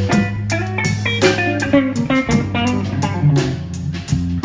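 Band playing a blues song without singing: guitar lines over a bass line and drums keeping a steady beat.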